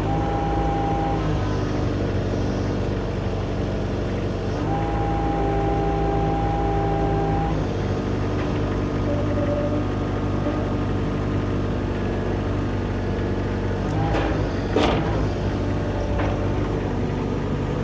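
John Deere 50 compact excavator's diesel engine running steadily under hydraulic load, with a high steady whine coming in twice as the controls are worked while lifting a full tote. A short clank about fifteen seconds in.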